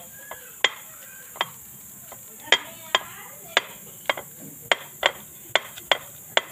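A round hand stone knocking on half-fried plantain slices through a plastic bag on a table, mashing them flat. It makes a series of sharp, short knocks, roughly two a second at an uneven pace.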